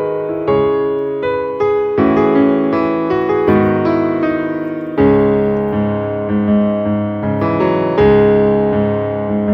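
Background music on a piano-like keyboard: gentle chords and melody notes struck about twice a second, each fading away, with fresh, louder chords about halfway through and again near the end.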